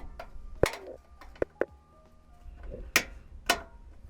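Sharp clicks and knocks of flathead screwdrivers working a plastic retaining clip loose from the side skirt and fender, about five in the space of a few seconds.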